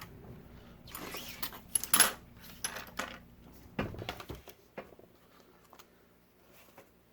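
Small repair tools such as screwdrivers and tweezers being picked up and set down on a work surface: a run of clicks and clatters, the sharpest about two seconds in.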